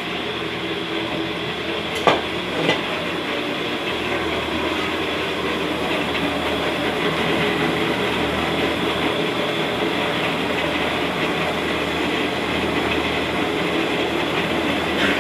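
Motorized cassava-flour roasting pan running: a belt-and-pulley-driven rotating arm drags paddles around through the toasting flour, giving a steady mechanical noise. Two short sharp knocks come about two seconds in.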